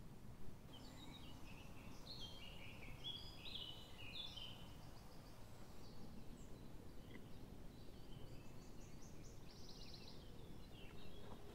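Songbirds singing faintly in woodland, a run of short chirped phrases and a trill, over a steady low rumble of background noise. A brief bump just at the start is the loudest moment.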